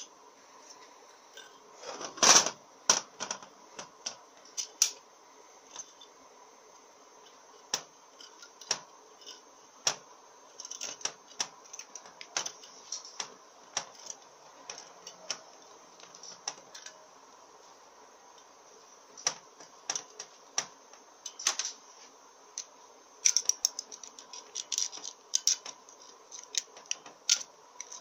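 Small steel valve parts clicking and tapping against a cast iron Powerglide valve body as a valve, its spring and retainer pin are worked back into their bore, in scattered sharp clicks. There is a louder cluster of knocks about two seconds in and a quick run of clicks near the end, over a faint steady hum.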